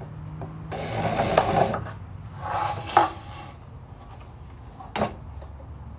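White plastic hydroponic grow tubes rubbing and scraping as they are handled and lifted, with a sharp knock about three seconds in and a short click near the end.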